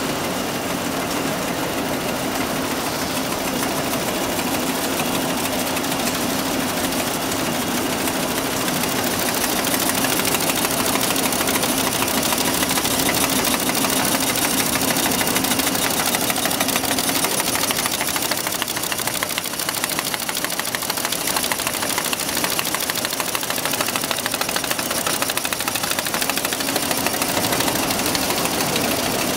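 SimSun Apollo-80FCV folder gluer running, its belts and rollers carrying cartons through the folding section: a steady machine running noise with a rapid fine clatter, a little louder from about ten seconds in.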